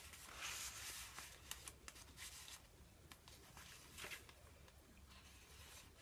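Faint rustling of paper and card as journal pages and tags are handled and a page is turned, with a few soft ticks.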